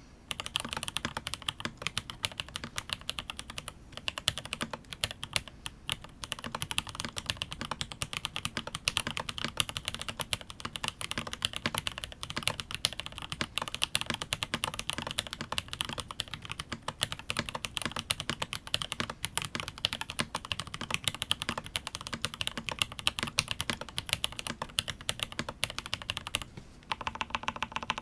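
Continuous fast typing on a Rama U80A custom mechanical keyboard with SP Star Magic Girl tactile switches on a brass plate with a silicone MUTE dampener and GMK keycaps: a steady stream of muted clacks. The typing breaks off briefly about four seconds in and again near the end.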